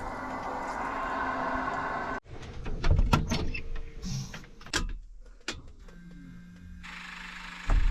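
A steady hum cuts off abruptly about two seconds in. It is followed by a string of sharp clicks and knocks from a door and its latch being worked. Near the end come a short falling whine and a low steady hum.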